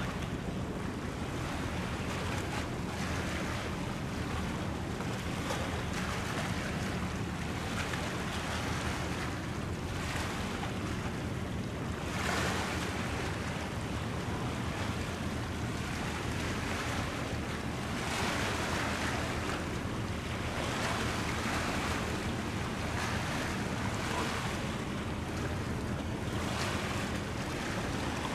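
Wind blowing on the microphone and waves washing in, swelling and easing every few seconds, over a steady low hum.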